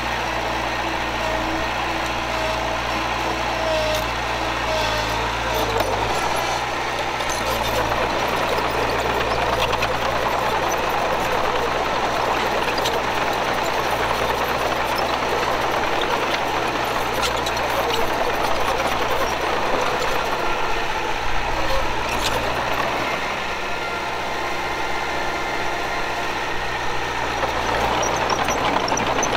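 Diesel engine of heavy earthmoving machinery running steadily, with scattered metallic clanks.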